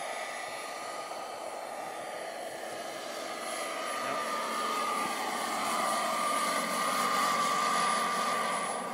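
Radio-controlled scale Huey (Bell UH-1) model helicopter flying past, its motor giving a steady high tone over the rotor noise. It grows louder as the model comes closer, peaks about seven seconds in, and falls off near the end.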